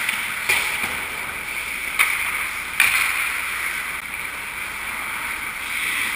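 Ice hockey skate blades scraping and carving the ice, a steady hiss, broken by three sharp clacks about half a second, two seconds and nearly three seconds in.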